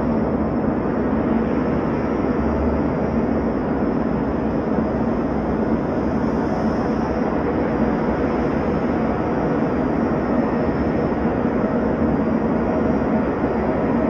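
Steady jet engine noise heard inside an airliner cabin, an even drone that does not change.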